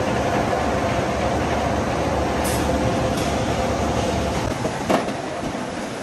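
Red-hot steel rebar running over a powered roller table: a steady metallic rumble with a held squeal from the turning rollers. The rumble eases off about four and a half seconds in, and there is a sharp clank just before five seconds.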